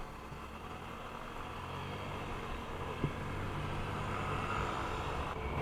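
Honda Click 150i scooter's single-cylinder engine running on the move, with road and wind noise, the sound building gradually as it gathers speed. A single short knock about three seconds in.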